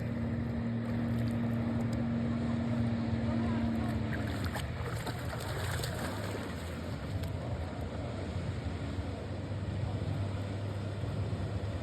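Jet ski engine running steadily, with wind and water noise; a steady higher engine tone drops away about four seconds in.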